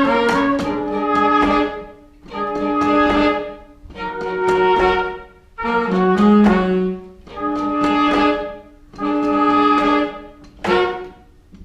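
Pit orchestra playing an instrumental passage: a run of about six held chords, each roughly a second and a half long with short breaks between, then a short final chord near the end.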